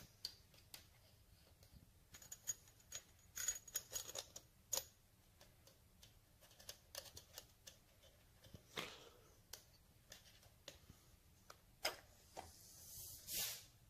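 Faint, scattered light clicks and taps of an oil bottle's thin metal spout against the timing gears and case of a Triumph 650 twin engine as oil is put on each gear. A short hiss comes about half a second before the end.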